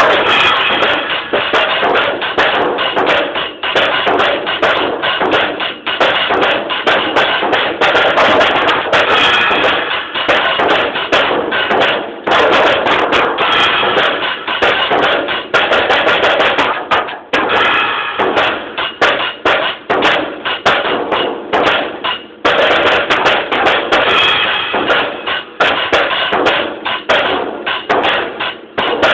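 Drum kit played solo: a fast, dense run of hits with hardly a pause. Recorded through a mobile phone's microphone, so the kit sounds thin and bad, with little top end.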